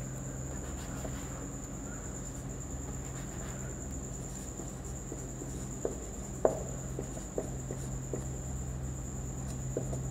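Felt-tip marker clicking and scratching on a whiteboard as a word is written: a string of short taps from about six seconds in, one sharp tap the loudest. A steady high-pitched whine and a low hum run underneath.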